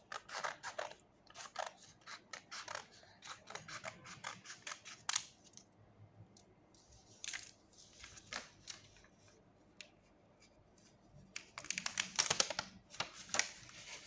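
Small scissors snipping through paper in a quick run of cuts for the first five seconds or so, then a few scattered clicks. Near the end, paper rustling and crinkling as a folded paper blind bag is pulled open.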